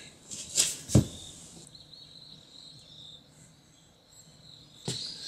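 Insects chirring steadily in the background, with a rustle and a sharp thump about a second in and another knock near the end.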